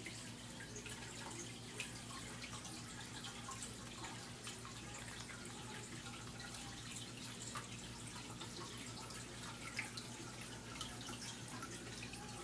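Aquarium water trickling and dripping, full of small irregular ticks, over a steady low hum.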